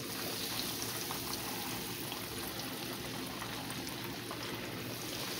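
Breaded buffalo fish pieces deep-frying in a pot of hot oil: a steady sizzle and bubbling with small scattered pops, just after the fish has gone in.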